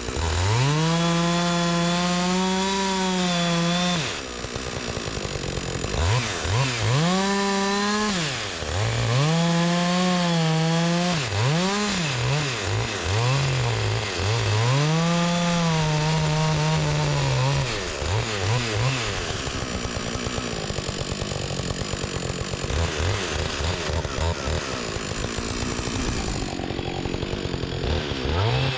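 Two-stroke chainsaw cutting into a log, its engine pitch dropping and climbing again and again as the chain bites and clears. For the last several seconds the sound turns rougher and less even.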